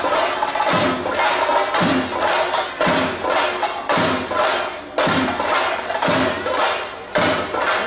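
Theyyam percussion: chenda drums beaten in a fast, dense roll with hand cymbals, a heavy accented stroke landing about once a second.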